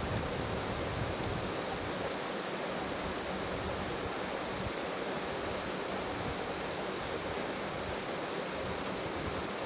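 Stream water running steadily: an even rush with no breaks.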